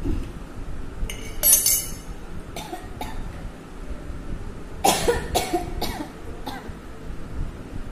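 A woman coughing: one harsh cough about a second in and a couple of lighter ones, then a run of four or five coughs about five seconds in.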